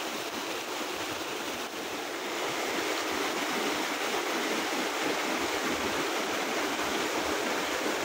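Mountain waterfall stream rushing and splashing over boulders, a steady rush of water that grows a little louder about two seconds in.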